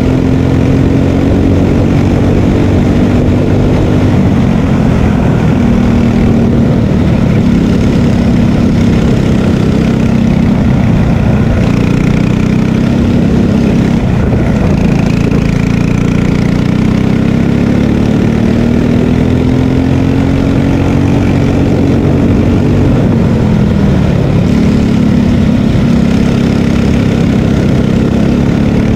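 Margay Ignite K3 racing kart's engine under hard running, heard from on board: the revs climb along the straights and drop away three times as the kart slows for corners.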